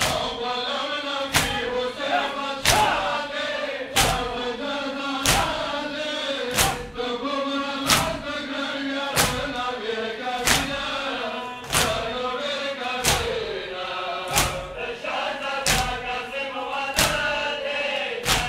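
Male voices chanting a Pashto noha (Shia mourning lament) in unison, over matam: a crowd of men beating their chests together, a sharp slap on each beat about every 1.3 seconds.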